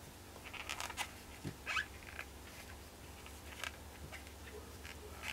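Faint scratching and rustling of a crochet hook pulling yarn through stitches, with a short rising squeak about a second and a half in.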